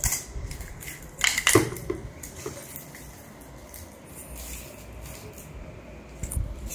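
Clear protective plastic film being picked at and peeled off a graphics card's fans and shroud, crinkling, with a few sharp crackles in the first couple of seconds and quieter rustling after.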